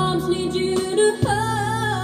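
Recorded music played back over upgraded JMlab 702 Odeon floor-standing loudspeakers in a listening room: a slow ballad with singing over a steady bass line, and a long held note starting a little past halfway.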